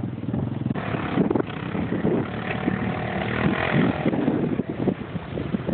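Quad bike (ATV) engine running and revving, its pitch rising and falling as the quad pushes through loose sand.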